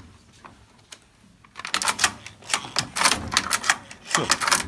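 V-bed flat knitting machine clattering: after a quiet first second and a half, a quick, dense run of sharp mechanical clicks from the machine's needles and carriage mechanism.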